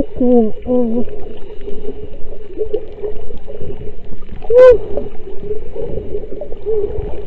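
A woman's wordless singing into the water, heard muffled underwater as sliding notes: short falling glides near the start and a rising-and-falling note about halfway through, over a steady hum.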